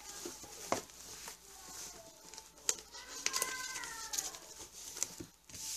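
Light handling of a ribbon-covered spiral notebook being lifted and turned on a cloth: faint rustling with a few sharp taps. About three seconds in, a faint drawn-out bird call rises and falls in pitch in the background.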